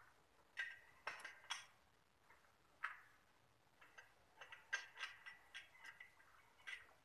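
Faint light clicks and small metallic clinks from hands working at the fittings and wiring of a split-type air conditioner's indoor unit: a few scattered ticks at first, then a quicker run of them in the second half.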